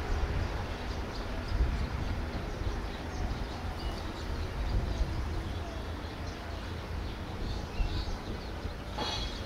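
A diesel locomotive approaching slowly, its engine a low steady rumble mixed with wind buffeting the microphone.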